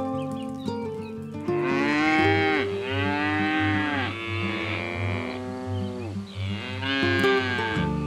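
Cow mooing: a series of long moos, each rising and then falling in pitch, starting about a second and a half in, over background music with a steady low beat.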